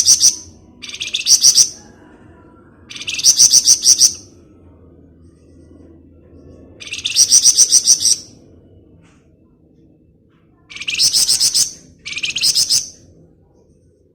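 Flamboyan songbird singing in rapid 'ngebren' bursts: about six short volleys of fast, evenly repeated high chirps, each lasting about a second, with pauses of one to three seconds between them. A faint low hum sits underneath and stops a few seconds before the end.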